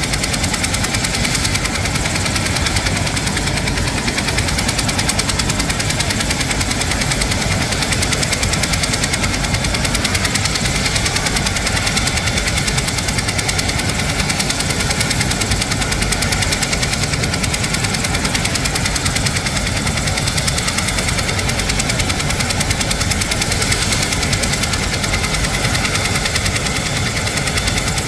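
Military transport helicopter running steadily on the ground with its main rotor turning: a rapid, even beat of the blades over a steady high turbine whine.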